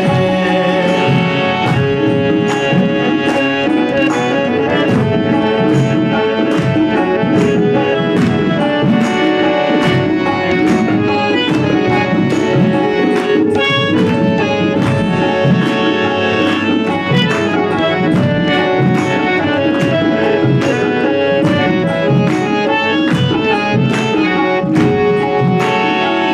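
Instrumental break in a devotional song: melody instruments play held notes over a steady beat of drum strikes, with no singing.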